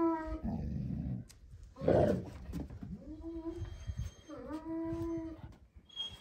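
A dog whining in long drawn-out notes, each sliding up and then holding steady, twice in the second half. There is a low rough growl near the start and a short harsh noise about two seconds in.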